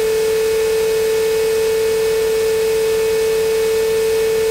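A steady, unwavering electronic tone over radio hiss on the aircraft's radio audio. It cuts in and out abruptly, like a carrier tone between radio calls.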